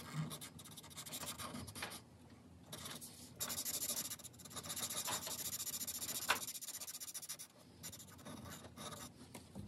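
A fine-point Sharpie marker scribbles rapidly back and forth on paper to fill in a shape, making a scratchy felt-tip sound. It pauses briefly about two seconds in, is loudest in the middle, and grows fainter near the end.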